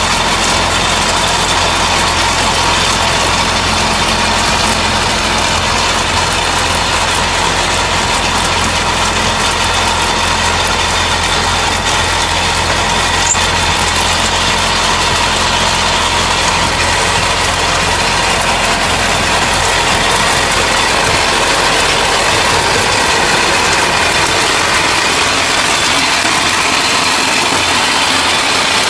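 Indo Farm tractor's diesel engine running steadily while it pulls a stone picker through stony soil, with a constant noisy clatter of soil and stones in the implement. The deep engine hum fades about twenty seconds in.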